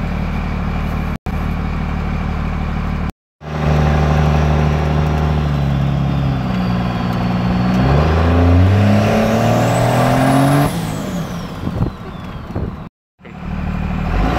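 24-valve Cummins 5.9 L inline-six turbodiesel with aftermarket injectors, idling, then accelerating hard after a short silent break. The engine note climbs and the turbo whistle rises to a high pitch; about ten and a half seconds in the driver lets off and the whistle falls away.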